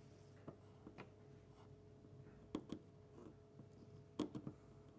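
Faint scattered clicks and light taps of a pencil and steel ruler on a plastic model-kit wall part as a cut line is marked, over a faint steady hum.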